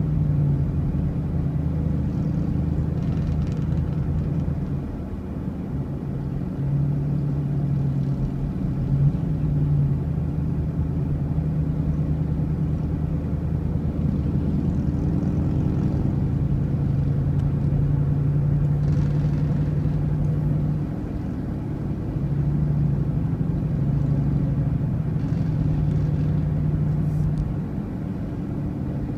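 A motor vehicle on the move: a steady engine drone over low road rumble, its pitch shifting slightly up and down.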